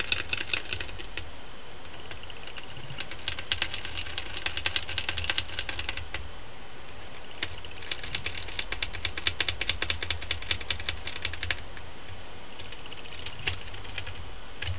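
Hand screwdriver driving small screws into the plastic chassis of a Toshiba Satellite L455 laptop: rapid clicking in about four bursts, with short pauses between them.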